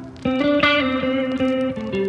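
Background music led by a guitar, playing a melody of held notes that change every half second or so.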